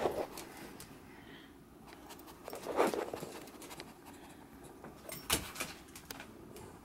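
A small fluffy dog nosing right up against the camera, its fur rubbing the microphone, with faint panting. There is a louder rustle about three seconds in and a sharp knock about five seconds in.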